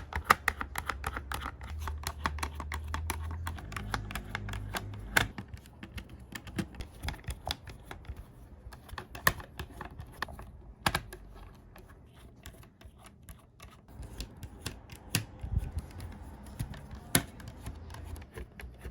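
Irregular clicks and taps of a screwdriver working on a Razer BlackWidow Lite mechanical keyboard's case as its screws are taken out, with the keyboard knocking as it is handled.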